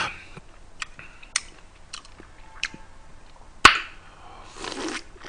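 Ice clicking now and then in a glass of iced drink, with one sharp clink about two thirds of the way through, then a short sip from the glass near the end.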